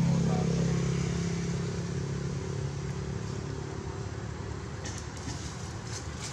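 A motor vehicle engine runs with a steady low hum that fades over the first few seconds, as if moving away. A few faint clicks come near the end.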